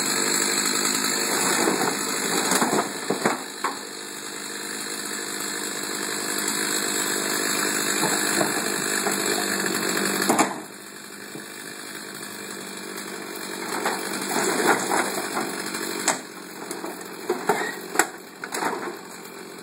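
Two-stroke Stihl chainsaw engine running, loudest in the first few seconds and then carrying on at a lower level after a sharp knock about ten seconds in. Near the end, splintered dresser panels crack and clatter as the broken wood is pulled apart and tossed.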